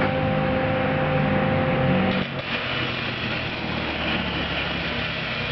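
Steady machine hum over a hiss. Its steady tones drop out about two seconds in, leaving a rushing hiss.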